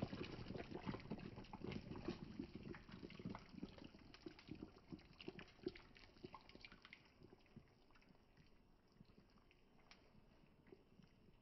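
Thick coconut milk poured from a jug into a steel pot of fish curry, splashing and dribbling as it goes in, tailing off about seven seconds in.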